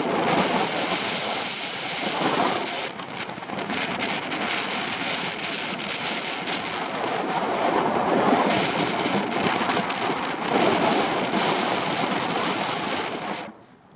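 Airflow buffeting the camera microphone of a paraglider in flight: a loud, gusting rush that swells and eases, dropping away sharply near the end.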